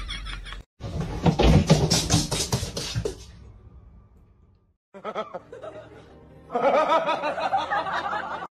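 Short pieces of laughter and music, broken by sudden cuts to brief silence.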